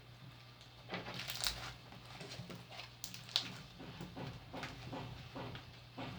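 Homemade slime being kneaded and stretched by hand, giving irregular sticky clicks and squelches, over a steady low hum.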